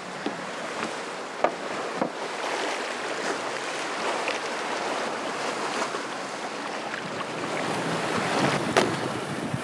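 Water washing and splashing around a boat's hull, with wind on the microphone and a few short sharp knocks, the loudest one near the end.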